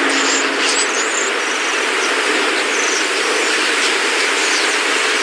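A large flock of common starlings chattering together, a dense steady wash of calls with sharp chirps and whistles standing out above it, most clearly in the first second or two.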